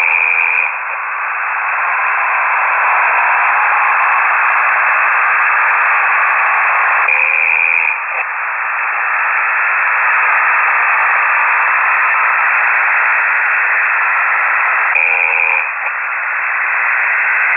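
A ham operator's snoring carried over the air and heard through a KiwiSDR receiver: steady radio hiss with a short buzzy sound that repeats about every eight seconds, near the start, about seven seconds in and again near the end.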